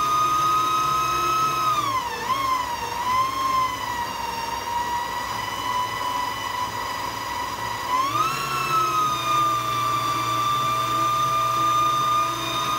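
Electric stand mixer running, its motor giving a steady high whine as it beats wet batter in a steel bowl. The pitch dips and wavers about two seconds in, holds lower, then rises back up about eight seconds in.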